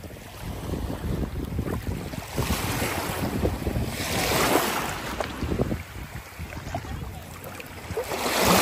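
Small waves washing in over a rocky shore in shallow water, the wash swelling and fading several times and loudest near the end, with wind buffeting the microphone as a steady low rumble.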